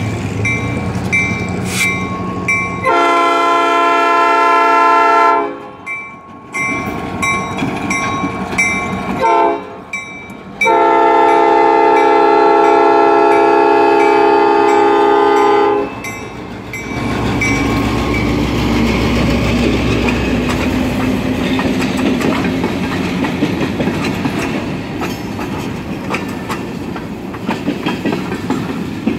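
Nathan Airchime P5 five-chime air horn on an EMD GP38-2 diesel locomotive blowing several blasts: a long one about three seconds in, a couple of short toots, then a long blast of about five seconds. Then the locomotive's diesel engine runs past, and empty flatcars roll by with a steady clickety-clack of wheels over the rail joints.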